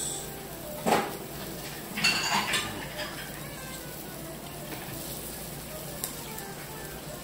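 Chopsticks and a ceramic rice bowl clinking and knocking as someone eats: a knock about a second in, a few clinks around two seconds in, a light click near the end. Under them, the steady sizzle of horse meat cooking on a tabletop grill plate.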